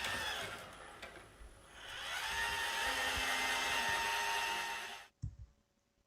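Robot vacuum running with a whirring motor that dips briefly, then cuts off suddenly about five seconds in, followed by a short thump.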